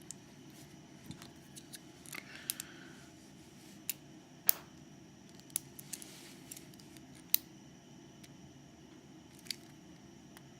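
Irregular sharp metallic clicks and taps of small hand tools and lock parts as a pin-tumbler lock cylinder is taken apart, about ten in all, two of them louder.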